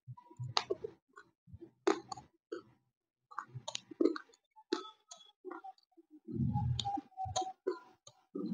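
Someone chewing and crunching a brittle snack right at the microphone: irregular crunches and wet mouth clicks. There is a denser low rumble about six and a half seconds in.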